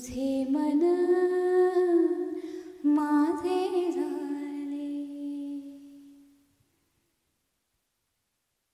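Unaccompanied singing voice humming long held notes that step from one pitch to another, fading out about six and a half seconds in.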